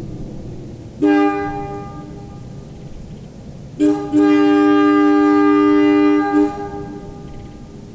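Wabco AA-2 two-chime air train horn blowing a steady two-note chord: a short blast about a second in, then a brief blip followed by a long blast of about two and a half seconds that stutters just before it cuts off.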